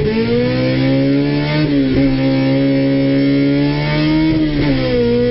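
Civic hatchback's B20 VTEC four-cylinder under full acceleration, heard from inside the cabin. The engine note climbs steadily and drops sharply at two upshifts, about two seconds in and near the end. The gear changes are unhurried.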